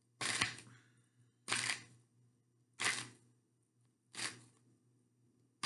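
A deck of tarot cards being shuffled by hand: four short shuffling sounds, about one every second and a half, each dying away quickly.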